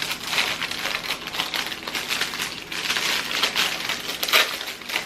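Plastic pouch crinkling as it is opened and handled: a continuous irregular rustle with a few louder crackles.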